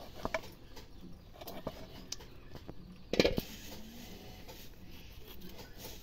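Small hooked knife held in the hand cutting pieces of raw fat, with scattered soft clicks and taps and a louder short clatter about three seconds in.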